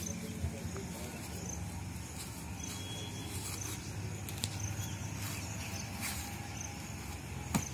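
Outdoor background: a steady low hum with faint high chirps every second or two, and a few sharp clicks.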